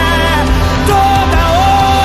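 Worship band music playing, with a lead melody line that starts a held high note about a second in, dips briefly, then rises and holds over a steady bass.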